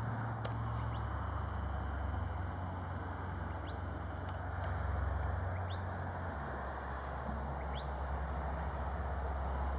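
A bird giving short, high, upward-sweeping chirps about every two seconds, four in all, over a steady low hum and soft outdoor hiss.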